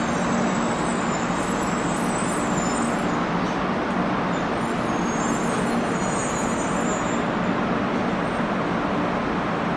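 Shinkansen trains at a station platform: a 700 series Rail Star rolling slowly in and coming to a stop beside a standing N700 series train, with a steady low hum and rushing noise.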